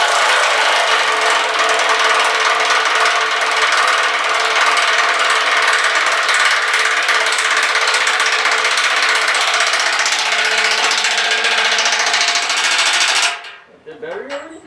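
Cordless impact wrench hammering steadily on a bolt for about thirteen seconds, then stopping near the end. Its battery is low on charge.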